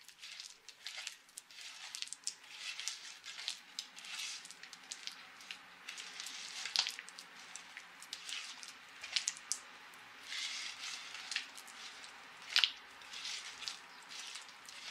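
Hands squeezing and rubbing soft butter with caster sugar in a wooden bowl: irregular squishing, rubbing strokes, with a few sharper clicks. The butter is being worked until the sugar dissolves into it.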